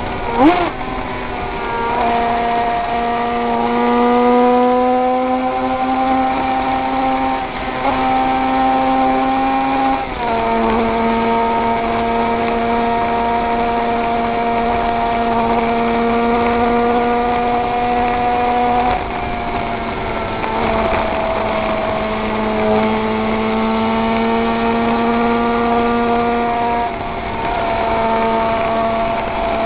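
König 500cc two-stroke flat-four racing motorcycle engine under hard throttle at speed, recorded onboard, its note climbing slowly in each gear and dropping at upshifts about ten and nineteen seconds in. There is a short sharp blip about half a second in and a rush of wind noise underneath.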